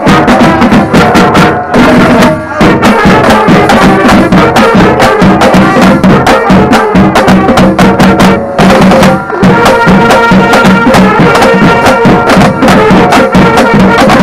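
Marching band playing loudly, heard from inside the drumline: snare, tenor and bass drums beat a fast, dense rhythm under held notes from the horns.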